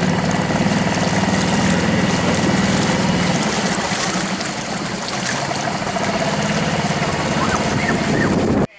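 Boat engine running steadily under a rush of water noise. It cuts off suddenly near the end.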